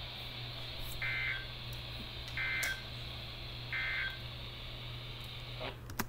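Emergency Alert System end-of-message data bursts played over a radio: three short warbling two-tone bursts about 1.4 s apart over steady radio hiss. The hiss cuts off just before the end.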